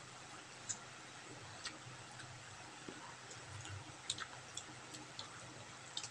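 Faint, irregular small clicks and smacks of people eating with their hands, over quiet room tone.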